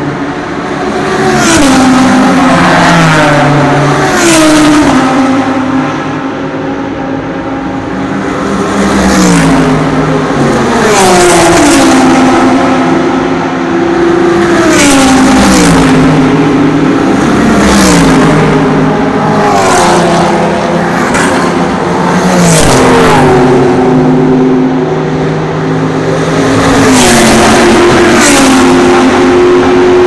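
A stream of GT race cars speeding past one after another, engines at full throttle. Each engine rises in pitch and drops back at every upshift as it pulls through the gears, swelling loud as it passes close and fading as the next one arrives.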